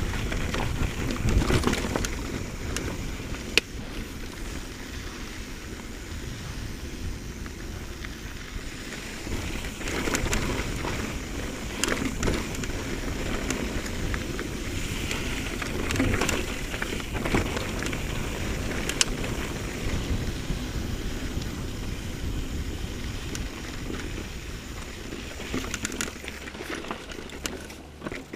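Mountain bike rolling down a rocky dirt singletrack: a steady rush of tyre noise, broken by frequent clicks, knocks and rattles as the bike goes over rocks and roots.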